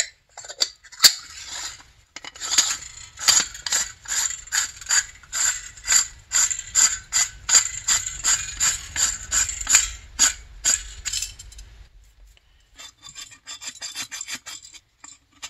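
Rhythmic mechanical ratcheting or rasping clicks, about three a second, for most of ten seconds. Fainter ticking follows near the end.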